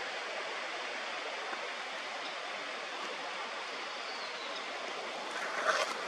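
Steady rush of a flowing stream, with a brief louder burst of noise near the end.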